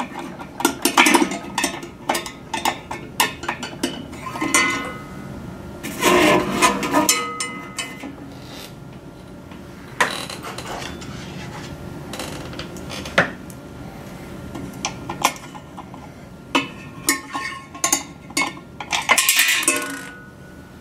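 Screws, washers and a long-shank Phillips screwdriver clinking and clicking against a sheet-metal antenna mounting bracket as the radio hood is screwed on: irregular metallic clicks, with busier clusters about a second in, around six seconds in, and near the end.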